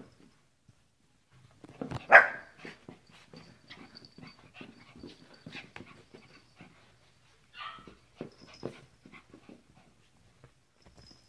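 Small dogs scuffling and tugging over a plush chew toy on a sofa and blanket: scrabbling paws and rustling fabric, with a sharp loud dog cry about two seconds in and a shorter one near eight seconds.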